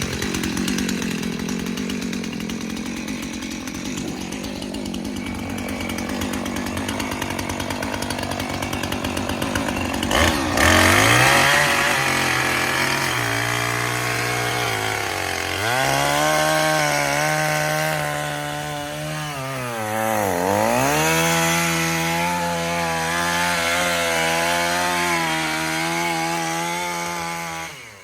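Two-stroke gas chainsaw, a Husqvarna Rancher 450, running at lower speed, then opened up to full throttle about ten seconds in. Its high whining pitch dips briefly twice and it drops off sharply near the end.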